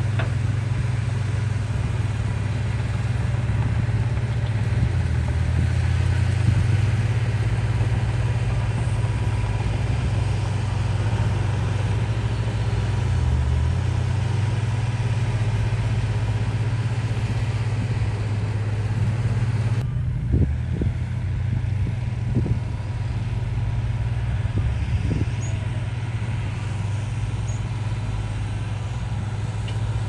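Diesel engine of heavy earthmoving machinery running steadily under work, with a few low thuds about two-thirds of the way through.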